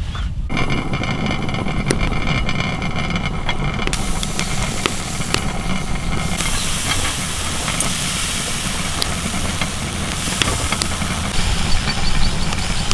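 Covered aluminium pot boiling over a wood fire, with steam hissing out under the lid; the hiss gets stronger about four seconds in. A steady low rumble and scattered small crackles run underneath.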